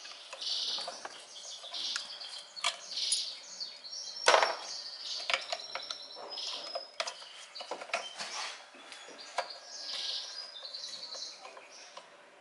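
Socket wrench clicking and clinking against metal as the bolts of a car's throttle body are undone by hand, in scattered irregular clicks with one louder knock about four seconds in. Small birds chirp now and then in the background.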